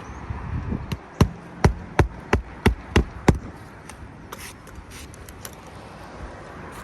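Hammer driving a roofing nail through an asphalt shingle: about seven quick strikes in a row, followed by a few lighter taps.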